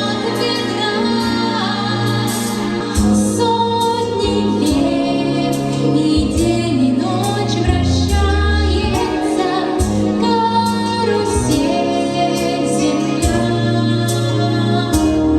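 A female voice singing a melody over an instrumental backing track with a bass line and a regular beat.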